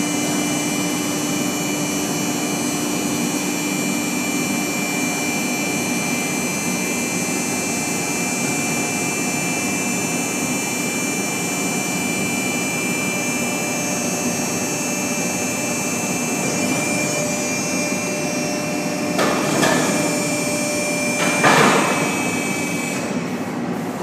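Hydraulic power pack of a vertical cardboard baler running steadily with a held whine during the bale-ejection cycle. Two louder, broader noises come near the end as the bale is pushed out, and the whine stops just before the end.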